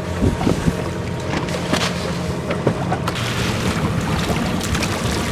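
Fishing boat's engine running with a steady low hum, wind buffeting the microphone, and a few light knocks on deck.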